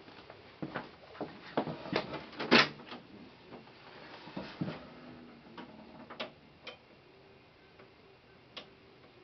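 Irregular clicks and knocks, several close together in the first few seconds with the loudest about two and a half seconds in, then only a few scattered clicks.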